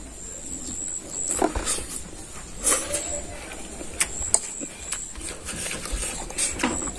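A person eating noodles: chewing and mouth noises, with a few sharp clicks of a fork against the bowl.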